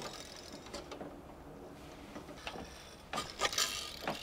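Scattered light clicks, taps and rustles of parts being handled, with a quick cluster of clicks a little after three seconds and another click near the end.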